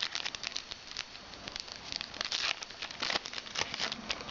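Foil wrapper of a trading-card pack crinkling and tearing as it is opened, with irregular crackles and a couple of louder bursts about two and three seconds in.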